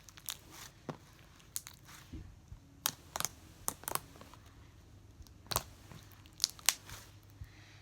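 Green glitter fluffy slime being worked by hand, giving irregular sharp clicks and pops, a few louder ones near the end.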